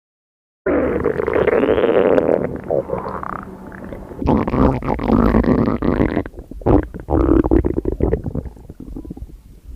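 Stomach growling: long, irregular gurgling rumbles that start abruptly about a second in, pause and return in surges, and trail off quieter near the end.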